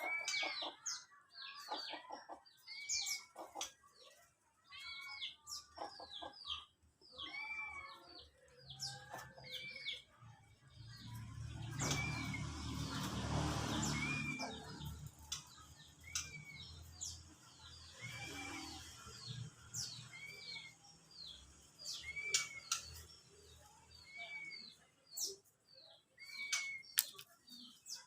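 Caged songbirds chirping and calling steadily, with one short arched note repeated about every one and a half to two seconds. About nine seconds in, a low rumble with a hum swells, peaks and fades over several seconds.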